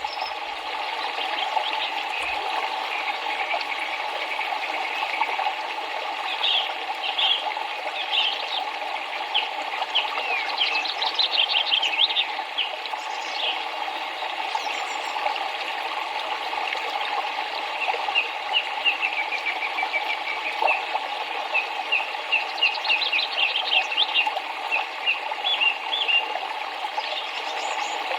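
Steady rush of flowing river water, with small birds chirping in runs of quick high notes through much of it.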